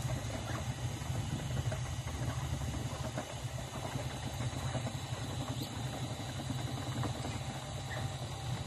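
Muscovy ducks pecking and dabbling at grain, a patter of many small quick clicks, over a steady low hum.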